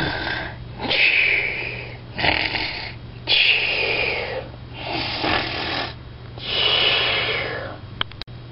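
A person doing mock snoring: about six drawn-out noisy breaths in and out, each around a second long, with short pauses between them.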